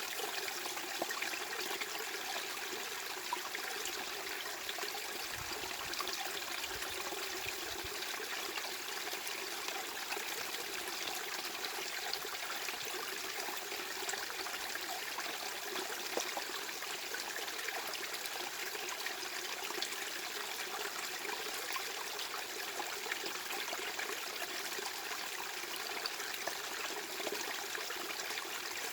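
Steady masking noise that resembles running water: an even rush, mostly in the middle and upper range with little bass, unchanging in level.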